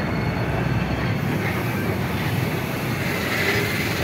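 Steady low rumble of road traffic, buses and motorbikes passing close by.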